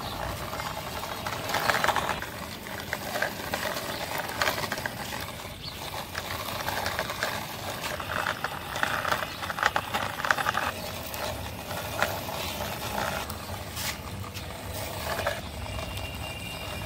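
Plastic toy car pushed by hand along a rough concrete wall top, its plastic wheels rolling and rattling in uneven spells with scattered clicks, the longest stretch of rattling about halfway through.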